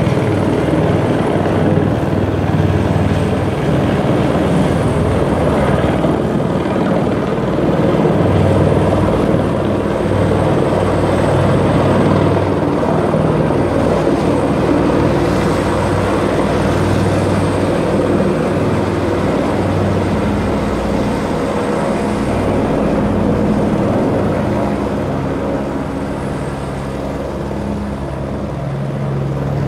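Helicopter flying close overhead: a steady rotor beat with a faint high turbine whine, easing a little near the end as it moves off.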